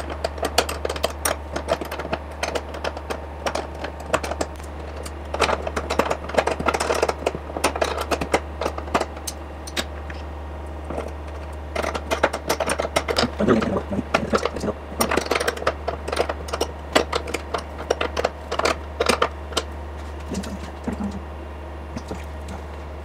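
Ratcheting wrench clicking in quick runs as the adjusting nuts on a power frunk latch module are tightened and loosened, with clinks of metal hand tools between the runs.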